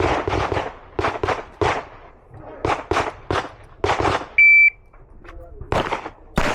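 A string of rapid pistol shots at a range, a dozen or so in quick groups, each ringing out with an echo. A little past the middle a shot timer gives one short high beep, followed by two more shots near the end.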